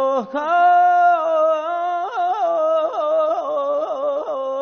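Unaccompanied male voice singing Persian classical avaz. A long held note gives way about two seconds in to a run of quick, wavering tahrir ornaments, and the voice settles on a held note again near the end.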